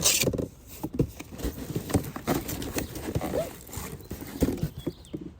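Cardboard boxes being handled and opened by hand: a short rustling burst at the start, then irregular knocks and rustles of cardboard.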